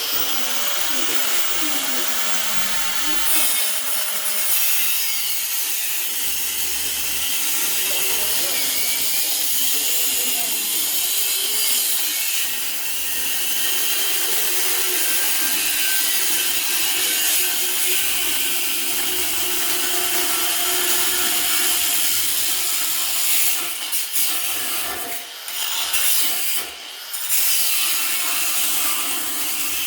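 Angle grinder cutting through the inch-thick steel wall of a safe, running steadily under load. The sound dips briefly a couple of times near the end as the disc eases off the cut.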